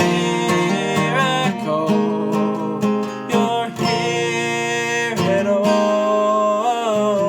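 Music: strummed acoustic guitar with a held, slightly wavering melody line over it, in a passage without lyrics.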